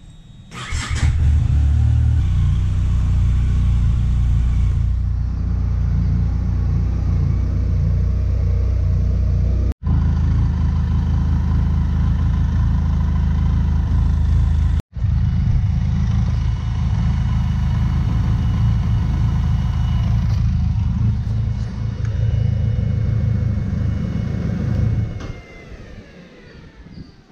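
Benelli TRK 502X's parallel-twin engine starting about a second in and then idling steadily to warm up the freshly refilled cooling system. The running sound falls away sharply near the end.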